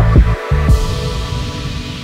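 Background music: a beat of drum hits that stops about half a second in, leaving held tones and a hiss that slowly fade.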